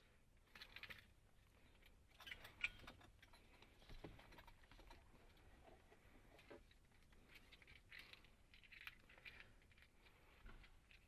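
Faint rustling and handling noises with scattered light clicks, coming in short irregular bursts; the sharpest click is about two and a half seconds in.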